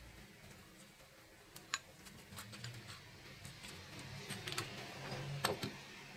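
Small metal clicks and scraping from the rusty striker mechanism of an old bicycle bell being worked apart by hand. There is one sharp click about two seconds in, then a cluster of clicks with some rubbing near the end, the loudest about five and a half seconds in.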